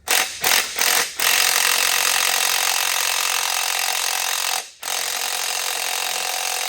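Impact gun running on the LS1's connecting rod cap bolts: three short bursts, then a long steady run, a brief stop, and a second long run.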